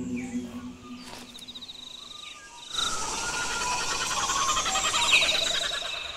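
Jungle ambience: a few scattered bird chirps, then about two and a half seconds in a dense bed of chirping birds and rapidly trilling insects comes in suddenly.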